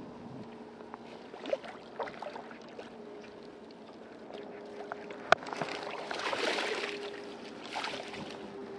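Hooked carp splashing and thrashing in shallow water as it is netted at the bank, loudest about six to seven seconds in. A few sharp knocks, one loud one a little after five seconds.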